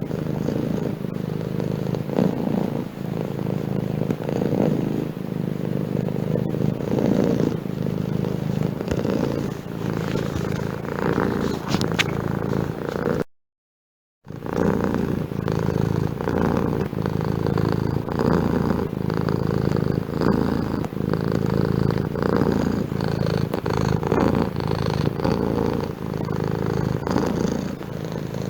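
Domestic cat purring in a regular pulsing rhythm, broken off by about a second of silence midway.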